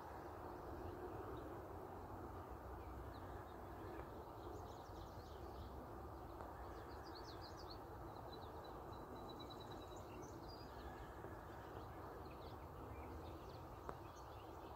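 Faint outdoor ambience: a steady low rush of background noise, with scattered high songbird chirps and a short, fast trill a little past the middle.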